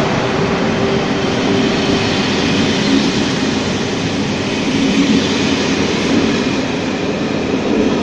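České dráhy passenger coaches rolling past along the platform track, with a steady noise of wheels running on the rails.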